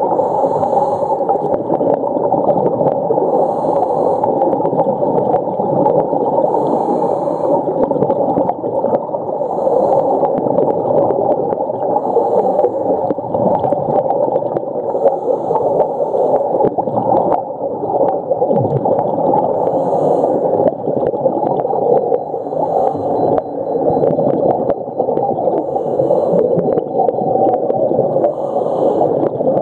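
Underwater sound of humpback whale song: faint drawn-out tones with a short rising call near the end, over a steady crackle of water noise.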